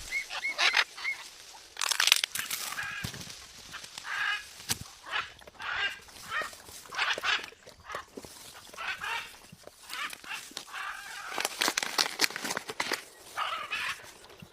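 Birds calling: a run of short, harsh calls coming one after another at irregular intervals.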